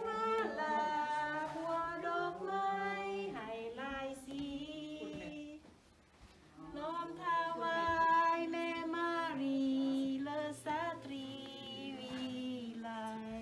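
A woman singing a slow melody with long held notes, in two phrases broken by a short pause about six seconds in.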